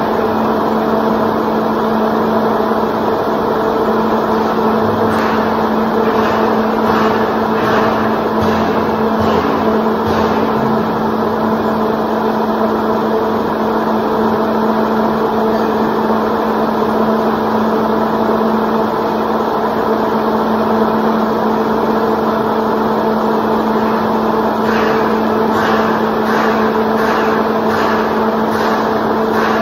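A machine running steadily at one constant pitch, with a few short knocks and scrapes scattered over it.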